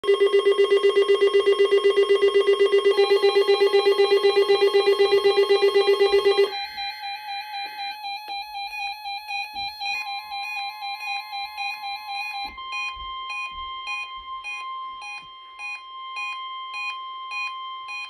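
Several NOAA weather radio receivers sounding their alert beeps at once for a Required Weekly Test. A loud, fast-pulsing buzzer tone is joined by a second warbling tone about three seconds in and cuts off about six and a half seconds in, leaving quieter overlapping beep patterns from the other receivers, which stop near the end.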